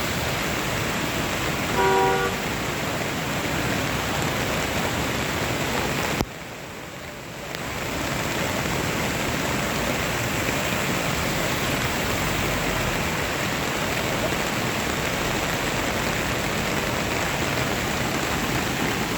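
Waterfall, a steady rush of falling water. About two seconds in there is a short pitched toot. Around six seconds in the rush drops sharply for about a second and a half, then comes back.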